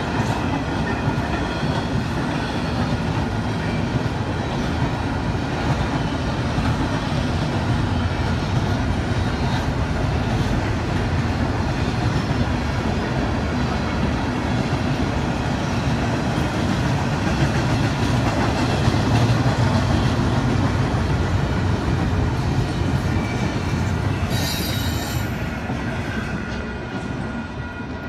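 A freight train rolling past: a steady rumble of the cars on the rails, with thin high wheel squeal over it, dying away near the end.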